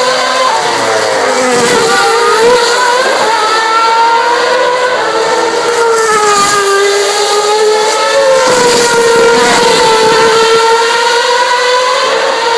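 Several 2.4-litre V8 Formula One cars running at high revs, their overlapping engine notes rising and falling in pitch as they pass. Loud, through a phone's microphone.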